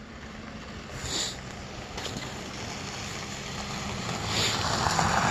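Snow shovel scraping and pushing through snow, with a short scrape about a second in and another about four and a half seconds in, over a steady low hum.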